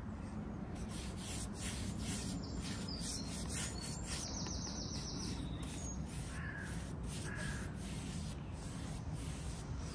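Bristle paintbrush stroking wet paint across a wooden table top, a soft repeated brushing rub. A bird calls twice about two-thirds of the way through.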